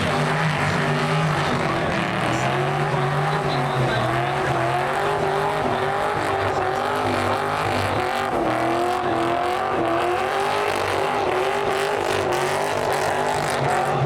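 Car doing a burnout: the engine is held at high revs, its pitch wavering up and down continuously, over the steady noise of spinning, squealing tyres.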